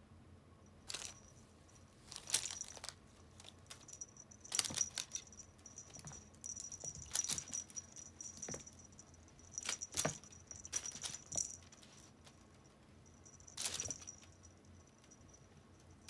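Small bell on a kitten's collar jingling in a series of short bursts as the kitten pounces and swats, with a faint high ringing between the bursts.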